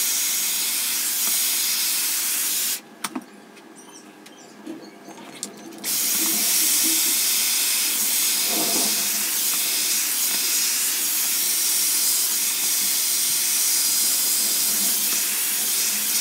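Dyson Airwrap with its smoothing brush attachment blowing hot air through long hair, a steady loud rushing hiss. It stops about three seconds in and starts again about three seconds later.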